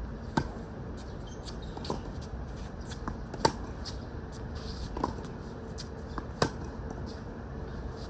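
Tennis rally: a racket strikes the ball with a sharp pop about every three seconds, three times, with fainter hits and ball bounces from farther away in between.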